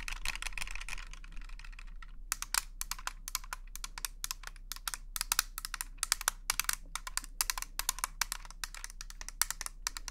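Quick, irregular tapping and clicking on the hard plastic of a V-line chin-strap face massager, starting about two seconds in after a soft rustle.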